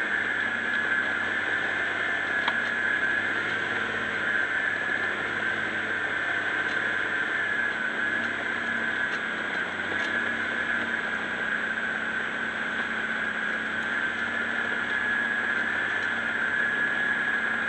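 Diesel engine of a tracked New Holland TM130 tractor trail groomer running steadily, with a steady high whine over it.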